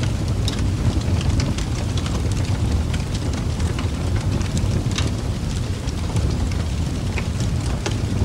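Steady rain: a constant low rumble under a dense scatter of small drop ticks.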